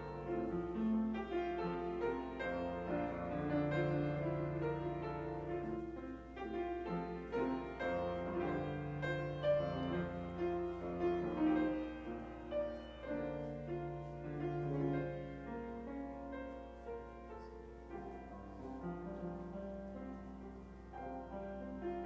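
Piano music playing, slow sustained notes and chords.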